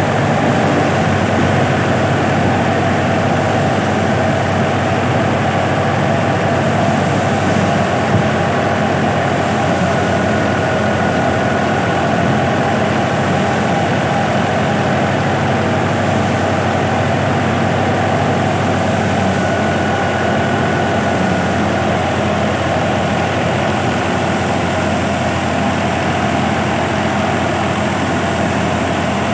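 Fiat tractor's diesel engine running steadily at an even speed.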